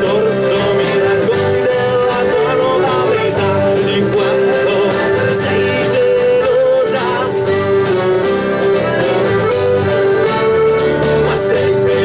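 A band playing a song live, with a sustained note held steadily underneath.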